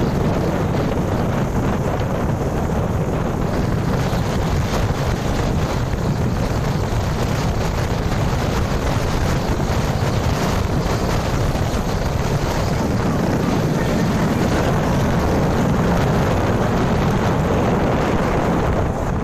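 Steady wind buffeting the microphone of a moving small motorbike, with the bike's running and road noise underneath.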